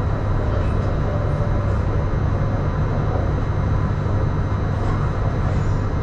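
Steady running noise of a Suzhou Metro Line 2 B-type electric metro train (CSR Puzhen-built), heard from inside the car: a low rumble of wheels and running gear with a few faint steady tones over it.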